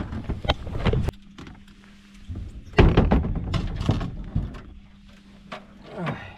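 Scattered knocks and thumps on a fishing boat, the loudest about three seconds in. A faint steady hum starts about a second in.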